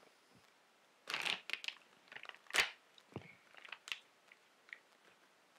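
Plastic beef jerky pouch being opened and crinkled in the hands: a run of crackling rustles, with one sharp snap about two and a half seconds in.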